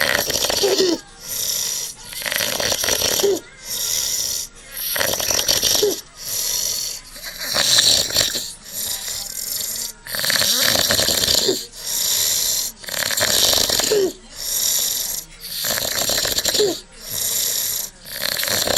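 A sleeping man snoring heavily and loudly, one noisy rattling burst about every second on both the in- and out-breath, with a short pitched rasp in roughly every other burst.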